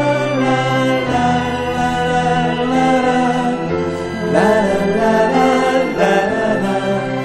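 Live band music: male voices singing a wordless "la la la" refrain over strummed acoustic guitars, with a string section playing along.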